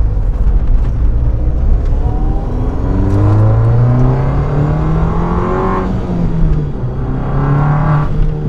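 Mini Cooper S (R56) turbocharged engine with an aftermarket downpipe, pulling hard under acceleration, heard from inside the cabin with the windows up. The engine note climbs for several seconds, dips briefly about six seconds in at a gear change, then climbs again; very loud.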